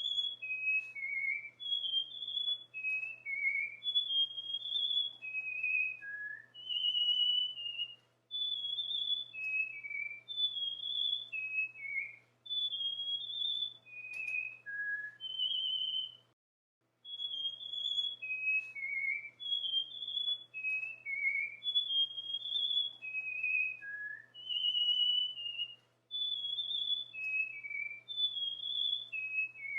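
Cockatiel whistling its song: a phrase of short, clear whistled notes stepping up and down in pitch, repeated about every nine seconds with brief pauses. A faint steady low hum sits beneath.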